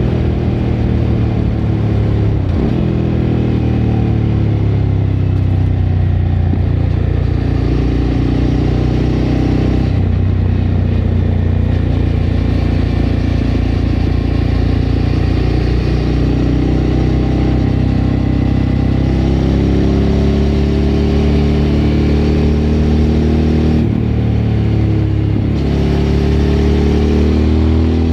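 Suzuki V-Strom 1000's V-twin engine through a Remus aftermarket exhaust, running under way. The pitch climbs and drops sharply several times: a few seconds in, around ten seconds in, and again near the end.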